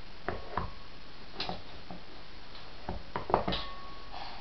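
Stainless steel colander being handled by a baby: a series of separate clinks and knocks, a couple of them leaving a short metallic ring.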